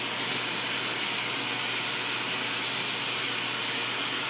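Bathroom sink faucet running steadily, water pouring into the basin while the face is wetted.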